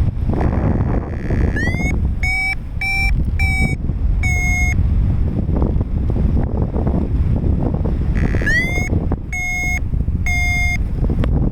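Strong wind rushing over the microphone in flight, with a paragliding variometer sounding two runs of high beeps, each run starting with a short rising chirp: the climb tone, signalling the glider is rising in lift.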